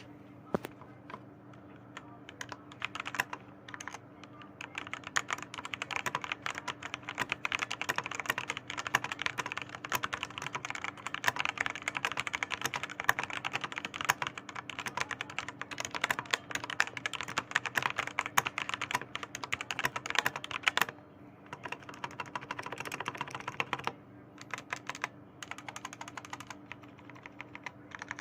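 Fast typing on a Leaven K620 mechanical keyboard with linear Outemu Red switches and foam inside the case: a dense run of key clacks with a slight ping to it. It starts with a few scattered presses, then runs rapidly, breaking off briefly about 21 seconds in and again near 24.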